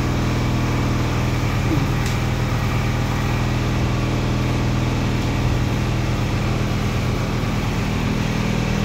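Steady low hum with an even hiss from hospital ward equipment: running fans and electrical units.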